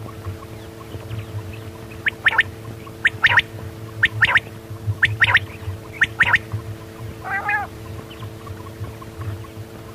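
Quail calling: five sharp calls of two or three quick notes each, about one a second, then a single lower, wavering call a little later, over a steady hum.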